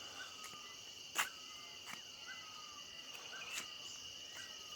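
Faint steady high-pitched chirring of insects, with short falling chirps repeating about twice a second and a sharp click about a second in.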